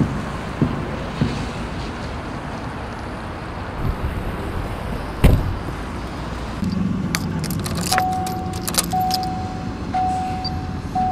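Getting into a car: footsteps, a car door slamming about five seconds in, then keys jangling at the ignition. Near the end a low hum sets in and a warning tone beeps in pieces about a second long.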